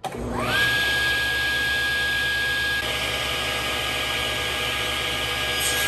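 SawStop table saw switched on: the motor and blade spin up with a quickly rising whine over about half a second, then run steadily at full speed with no wood being cut.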